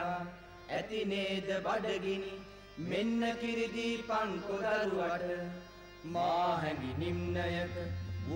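A man singing a slow, chant-like Sinhala song in phrases of a second or two, with short breaks between them. A low steady hum comes in under the voice about two-thirds of the way through.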